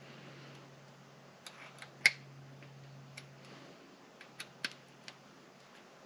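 Roll cage parts of an RC rock crawler clicking and tapping together as they are handled and fitted. There are several scattered light clicks and one sharp, much louder click about two seconds in.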